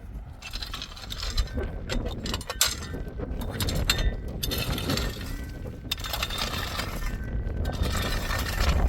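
Irregular clicking and clattering, many small knocks at uneven spacing, over a low rumble of wind on the microphone that grows louder near the end.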